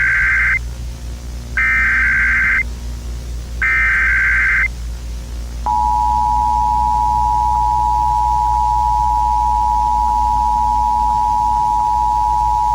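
Emergency Alert System signal: the end of one digital SAME header burst and then two more bursts about a second long each, a second apart, followed from about six seconds in by the steady two-tone EAS attention signal.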